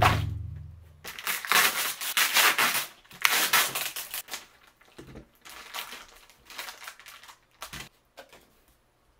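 A deep booming hit at the start that dies away over about a second, then plastic bags and a cardboard box crinkling and rustling as they are pulled open, loudest for the first few seconds and then in shorter bursts.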